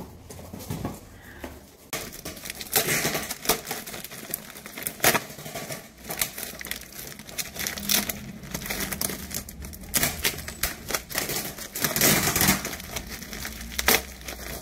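Crinkling and rustling with many irregular clicks and knocks, as of things being handled close by, in a small room.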